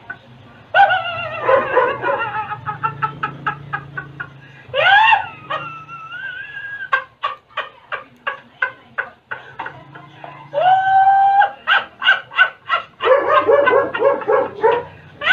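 A man laughing hysterically: quick, repeated bursts of laughter, about four to five a second, broken by a few long, high-pitched squeals, one rising about five seconds in and another held near the ten-second mark.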